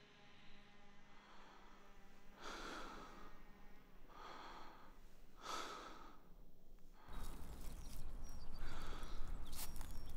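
A man breathing heavily, with slow deep breaths in and out about a second or so apart. About seven seconds in, a low steady rumble starts underneath.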